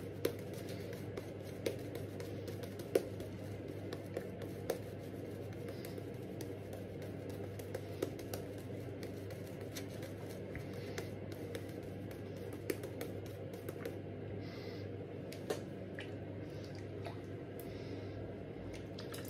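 Silvertip badger shaving brush working lather over the jaw and neck: soft squishing and brushing, with a few light clicks, over a steady low hum.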